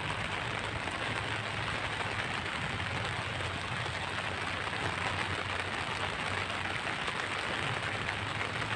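Steady rain falling and pattering on surfaces, an even hiss throughout.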